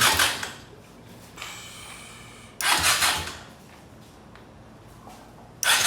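A quad's electric starter cranks the engine in short bursts without it catching: cranking fades out just after the start, comes again for about half a second some two and a half seconds in, and starts again near the end. The no-start is suspected to be electrical, probably a bad ground.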